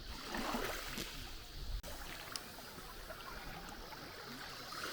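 Water splashing and lapping, an uneven rushing sound with a brief drop-out about two seconds in.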